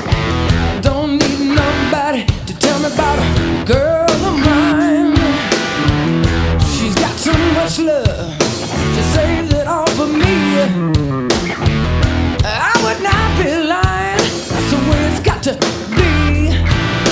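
Background rock music with electric guitar, drums and a singing voice.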